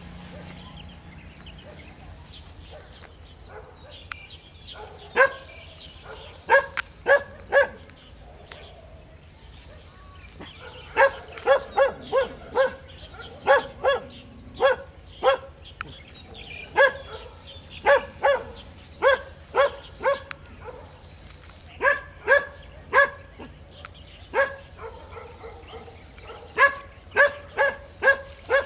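A dog barking in short, high-pitched runs of two to five barks, with pauses of a few seconds between the runs.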